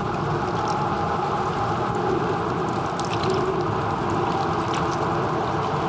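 Steady sound of moving water, lapping and gurgling, with faint scattered ticks and drips.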